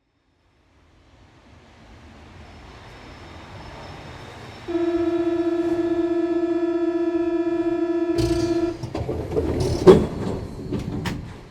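Inside a Paris Métro MP73 car: a loud, steady electric buzzer sounds for about four seconds, typical of the door-closing warning. It is followed by the clatter and a sharp bang of the doors shutting about a second later, then a few clicks.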